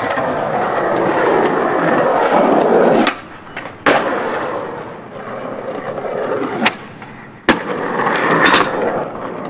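Skateboard wheels rolling loudly on smooth pavement for the first few seconds, then three sharp clacks of the board against the ground, with more rolling near the end.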